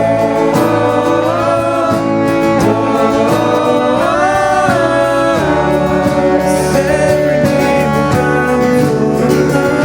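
Live worship music: guitar accompaniment under a sustained, gliding melody line, played steadily without a break.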